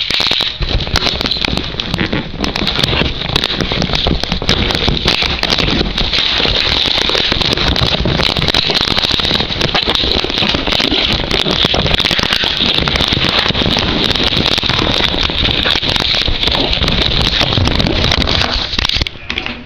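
Loud, continuous crackling and rustling of a mailed package's wrapping being handled, easing off just before the end.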